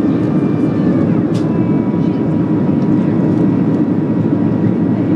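Steady cabin roar of a Boeing 737-300 with CFM56-3 engines, heard from a window seat over the wing while descending on approach, with a faint steady high whine over it.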